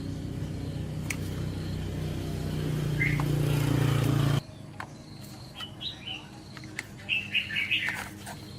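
A motor running with a steady drone that grows louder, then cuts off suddenly about halfway through; birds chirp several times after it stops.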